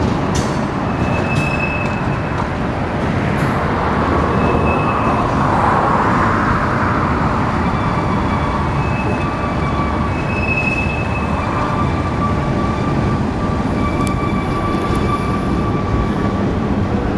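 Union Pacific freight train rolling past: a steady loud rumble and rattle of railcar wheels on the rails, with faint high squeals from the wheels coming and going.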